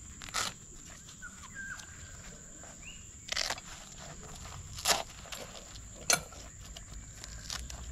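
Canvas tool roll of metal tent pegs being opened and handled: four short rustles and clinks, the last a sharp click a little after six seconds in. A few faint bird chirps and a steady high tone sound behind.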